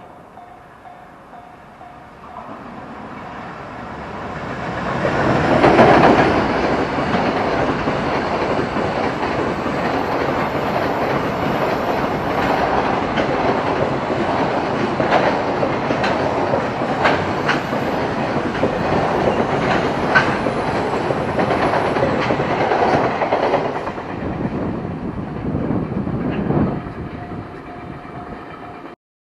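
Freight train hauled by EF510 electric locomotive EF510-513 passing over a level crossing. The noise builds as the locomotive approaches and is loudest about six seconds in. A long run of wagons follows, with wheels clicking over rail joints, and the sound fades after about twenty-four seconds.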